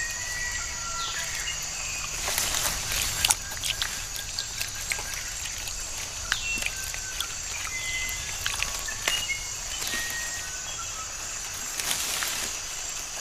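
Tropical forest ambience: a steady high insect drone with many short, whistled bird chirps over it, and a few brief sharp noises now and then.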